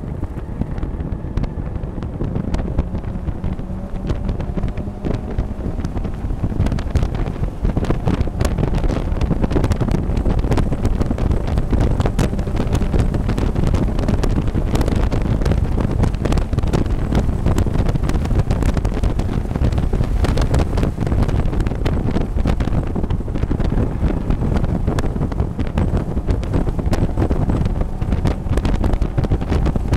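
Mazda MX-5 race car heard from inside the cockpit at racing speed: the engine running under load, with heavy wind buffeting the microphone. The engine note rises slowly in the first few seconds, and the noise gets louder and rougher about eight seconds in.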